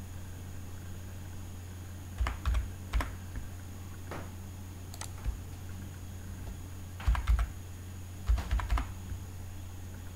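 Computer keyboard keys tapped in short clusters as numbers are typed into data-entry cells, over a steady low hum.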